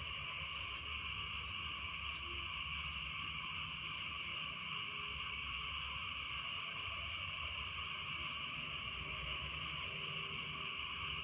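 Dense, steady chorus of many frogs calling after rain, merged into an unbroken high trilling wash, with a low steady rumble underneath.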